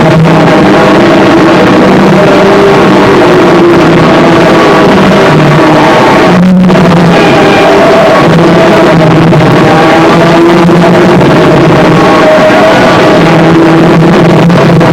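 Harsh noise music: a dense, distorted wall of noise at constant maximum loudness, with droning tones underneath that shift in pitch. There is a brief break in the upper noise about six and a half seconds in.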